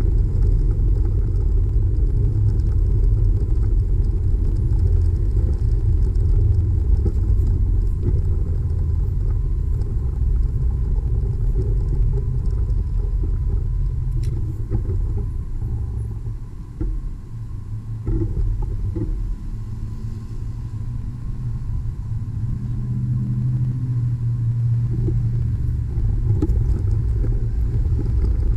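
Wind buffeting the microphone of a camera on a moving bicycle, a steady low rumble mixed with passing road traffic. It eases a little about halfway through, as the bike slows at an intersection, then builds again.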